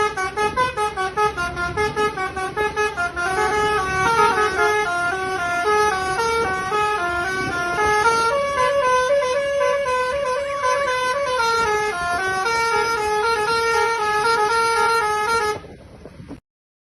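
Basuri multi-tone 'telolet' bus horn playing a melody: quick stepped notes for the first few seconds, then longer held notes, cutting off near the end.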